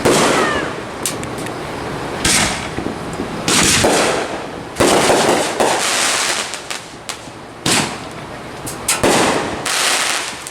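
Consumer fireworks going off in a string of loud bangs, one every second or two, with short sharp crackling pops in between.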